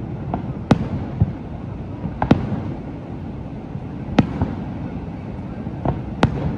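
Fireworks display: a series of sharp bangs from bursting aerial shells, about one every second or two, over a steady low background noise.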